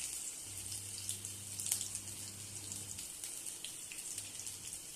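Ginger frying in a pan on a high gas flame: a steady sizzling hiss with scattered crackles.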